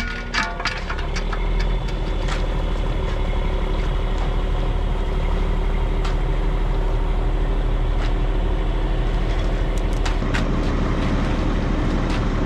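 A large engine running steadily at a constant pitch, with a few sharp knocks or clanks in the first second or two.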